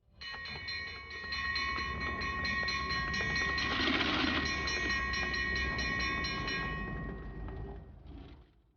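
Train running with a long, steady whistle over a low rumble; the whistle stops about seven seconds in.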